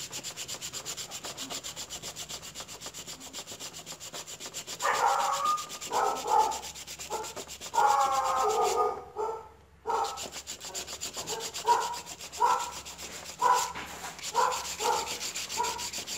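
Sandpaper rubbed back and forth by hand over the copper contact of a motorcycle gear position indicator switch, smoothing a deep wear groove. The strokes are quick and even at first, then from about five seconds in become slower and louder, roughly one or two a second.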